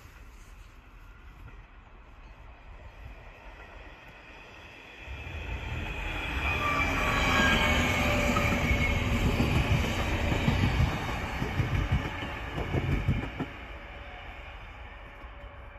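DSB IC3 (MF) diesel multiple unit passing: rumble and wheel clatter build about five seconds in and peak with a high whine that falls in pitch as the train goes by, then fade as it moves away.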